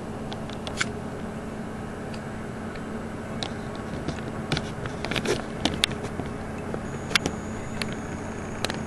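Scattered sharp clicks and taps over a steady background hum. The clicks become more frequent about halfway through.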